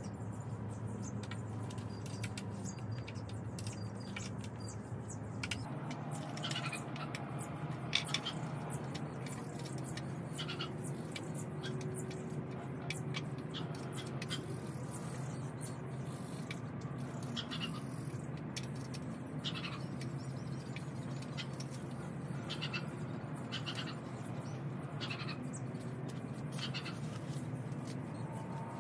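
Scattered light knocks and clicks as wooden garden bench parts are handled and fitted together, over a steady low hum.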